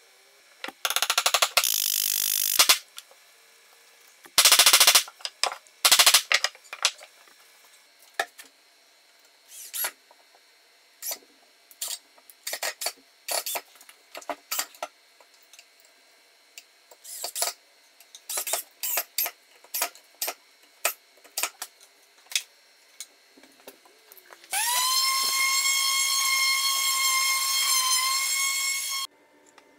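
Power tool work in a shop: a few loud bursts, then a run of short clicks and knocks, then a motor whine that spins up about 25 seconds in, holds steady for about four seconds and cuts off sharply.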